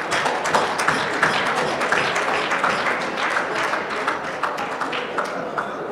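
Audience applauding: many hands clapping together, easing off near the end.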